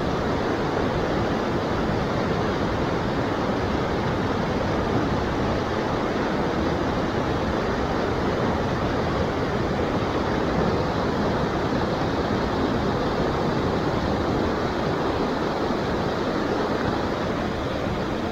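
Fast, turbulent stream water rushing steadily over rocks.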